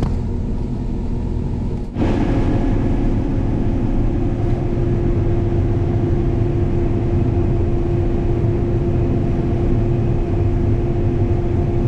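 Combine harvester running steadily while cutting corn: a low rumble with a steady whine over it. About two seconds in the sound jumps abruptly louder and brighter, then holds steady.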